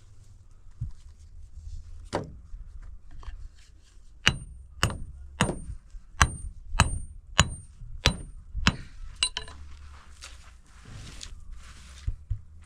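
Hammer driving nails into wood: about nine evenly spaced strikes, roughly one and a half a second, each with a short metallic ring. This is followed by a couple of seconds of rustling.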